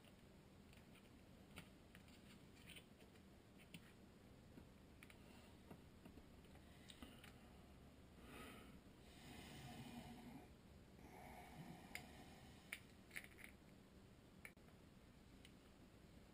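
Near silence, with faint scattered clicks and ticks of a Daiwa Ryoga baitcasting reel's metal parts being handled as its spool and sideplate are fitted. A soft rustle comes about halfway through.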